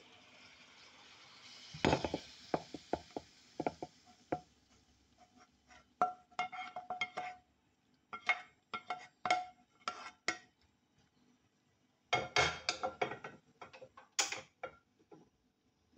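Wooden spatula knocking and scraping against a non-stick frying pan as stir-fried okra is scraped out, some strikes leaving the pan ringing briefly; a faint sizzle fades out in the first few seconds. Near the end comes a dense cluster of knocks and a clatter of the pan on the gas burner grate.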